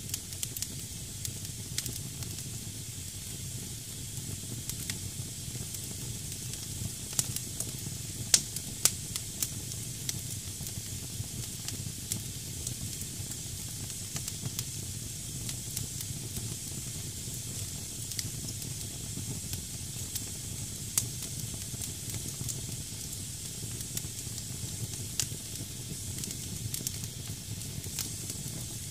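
Wood fire burning in a fireplace: damp firewood hissing steadily, with frequent sharp crackles and pops over a low rumble. The loudest are two pops about eight and nine seconds in.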